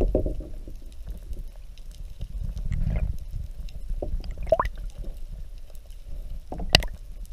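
Muffled water sounds from a GoPro held under the surface beside a kayak: a low sloshing rumble with a few sharp knocks and a short bubbling chirp, the loudest knock near the end.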